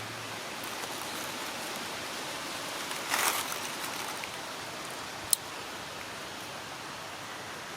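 Steady hiss of outdoor noise like light rain or running water, with a brief rustle about three seconds in and one sharp click a little past five seconds.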